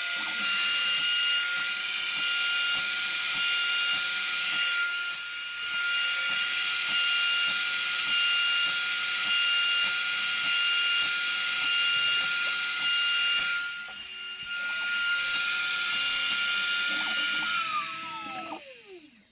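Shapeoko CNC router spindle starting up and running with a steady high whine while the bit cuts a shallow one-pass pocket in mahogany. Near the end the whine falls in pitch as the spindle spins down once the pocket is done.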